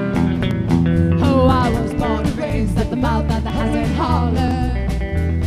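Live band music with guitars and a steady drum beat, an instrumental stretch in which a lead line bends up and down in pitch.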